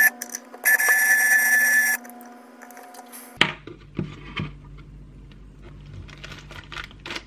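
A loud electronic buzzing tone about a second in, lasting just over a second, followed by faint clicks and rustles of hands handling wires and small parts.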